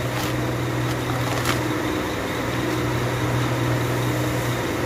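Steady low drone of machinery running in the background, even in level throughout, with two faint clicks, one just after the start and one about a second and a half in.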